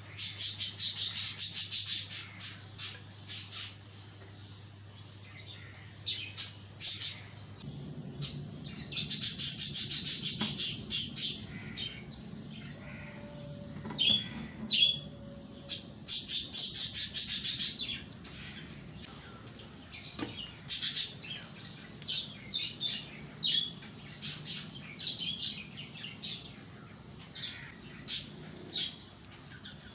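Fork beating eggs in a glass bowl: fast, even clicking in three bursts of a few seconds each, with scattered short high chirps between the bursts.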